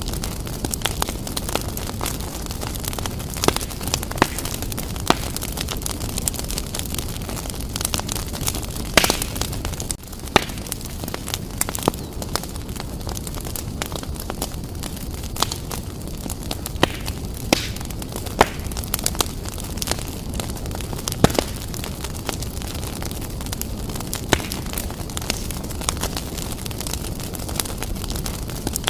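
Wood fire burning vigorously in a fireplace: a steady low rumble of flames with irregular sharp crackles and pops of the burning logs.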